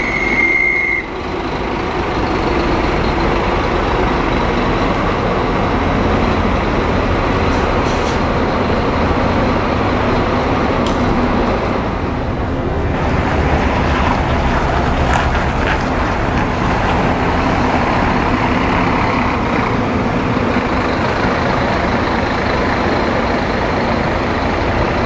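Diesel engine of a Scania-chassis Modasa Zeus 3 double-decker coach running steadily, with traffic around it. A short high beep sounds in the first second.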